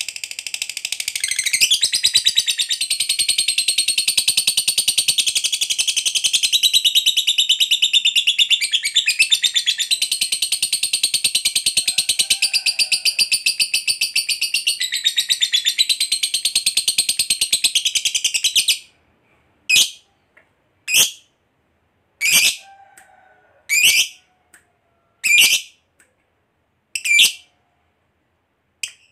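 Masked lovebird giving a long ngekek: a rapid, unbroken, high-pitched chattering trill for about eighteen seconds. It then breaks off into single sharp chirps, seven of them about a second and a half apart.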